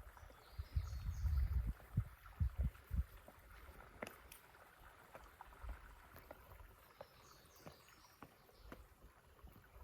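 Low muffled thuds and rumbling in the first few seconds, then a few faint clicks: movement noise from climbers shifting on rock, picked up close to the microphone.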